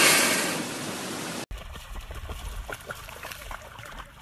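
A loud, steady hiss swells at the start and fades, then cuts off abruptly about a second and a half in. After that, a dog's paws splash through shallow standing water in quick steps over a low rumble.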